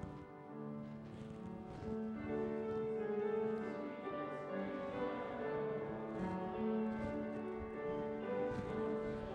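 Slow instrumental church music on a keyboard, held notes and chords moving calmly from one to the next, played during the offering.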